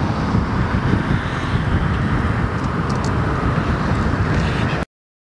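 Distant Tupolev Tu-154M climbing away after takeoff, its three Soloviev D-30KU-154 turbofans heard as a steady low rumble. The sound cuts off suddenly near the end.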